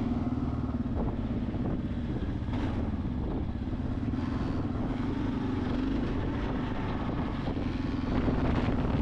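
Motorcycle running steadily, a continuous low drone with a rumbling noise beneath it.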